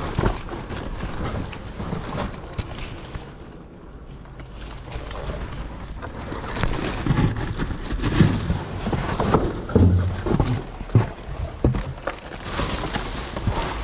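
Rummaging through cardboard boxes: cardboard rustling and scraping, with scattered knocks and low thumps as boxes are shifted, busiest in the second half.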